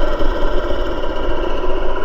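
Made-up monster roar sound effect: a long, rough roar with a deep rumble under it, held steady and loud.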